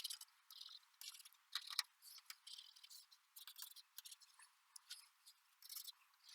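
Faint handling sounds of a freshly cut repair template: short scattered rustles and clicks with no steady sound under them.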